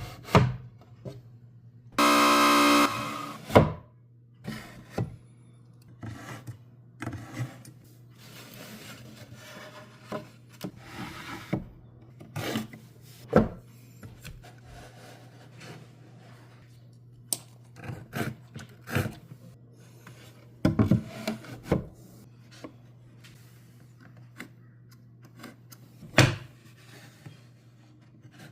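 Hand woodworking on wood: scattered knocks and taps of wooden pieces with stretches of rasping and rubbing, over a steady low hum. A loud buzz lasts about a second, some two seconds in.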